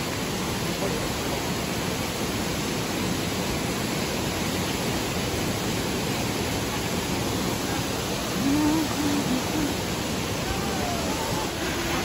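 Steady rush of a waterfall, an even wash of noise throughout, with faint voices briefly about eight and a half seconds in.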